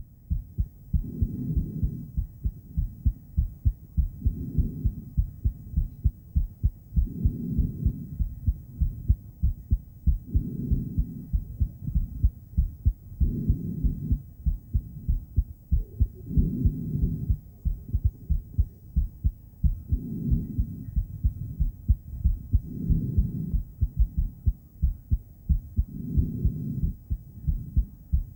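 Woman's heartbeat picked up by a handheld ultrasonic Doppler device: quick rhythmic whooshing pulses, swelling and fading about every three seconds.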